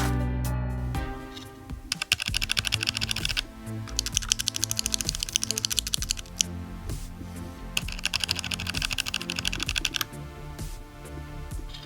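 Fast typing on a compact mechanical keyboard, rapid key clicks in bursts of a second or two with short lulls between, over background music.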